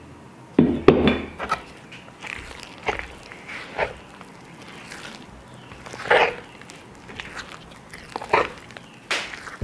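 Stiff cookie dough being worked in a floured wooden bowl, squelching and slapping in short irregular bursts. The loudest come about a second in and about six seconds in.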